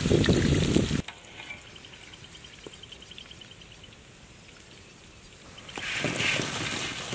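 Hot oil sizzling loudly in an iron wok as a skimmer full of potato sticks is lifted out, cut off suddenly after about a second. A quiet outdoor background with faint, evenly spaced high chirping follows, and near the end a louder rustling returns as the potato sticks are tipped out onto a cloth.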